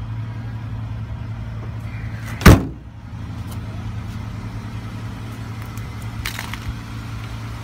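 A 2012 Dodge Charger's car door slammed shut once, about two and a half seconds in, over a steady low hum.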